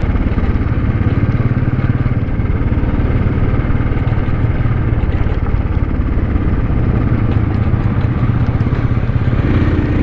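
Royal Enfield 350's single-cylinder engine running steadily under way on a dirt track, a fast even beat low in pitch, heard close up from the rider's camera.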